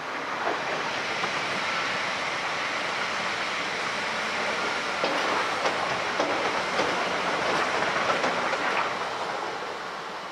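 Red electric regional multiple-unit trains running past on the line, a steady rush with the wheels clicking over the rail joints. The sound is loudest in the middle and fades near the end as the last train draws away.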